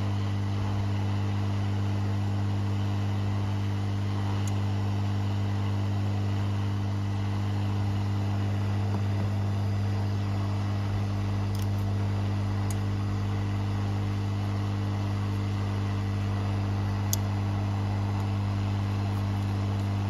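Hot-air rework station blowing steadily onto a circuit board to melt the solder under a chip: an even motor hum with airflow hiss. A faint tick near the end.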